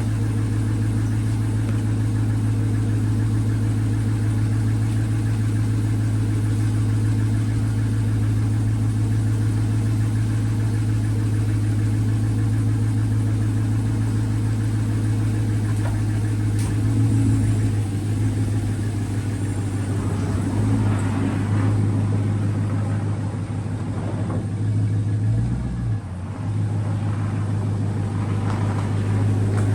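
A 2016 Dodge Charger's engine idling with a steady hum, which wavers unevenly for a while in the second half.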